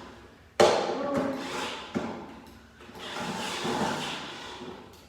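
Handling noise from working on an electric ride-on quad: a sharp knock about half a second in that rings on briefly, a smaller knock near two seconds, then a stretch of rattling and scraping as parts are moved about.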